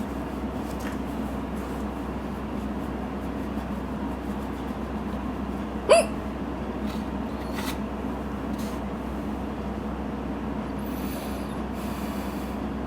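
A woman hiccuping once, about halfway through: a single short, sharp squeak of voice that rises and then drops, brought on by drinking. A steady low hum runs underneath.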